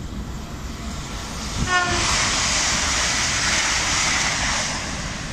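Great Western Railway Class 800 express passing through the station at speed: a short horn toot, then the loud rush of the train going by, which eases off near the end.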